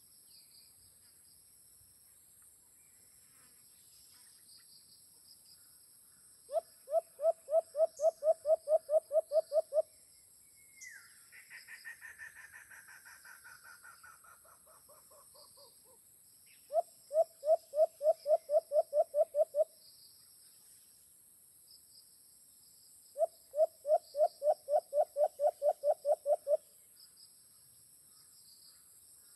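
White-eared brown dove calling: three runs of about a dozen quick, evenly spaced hooting notes, roughly four a second, each run lasting about three seconds. Between the first two runs comes a longer, rougher call that falls in pitch.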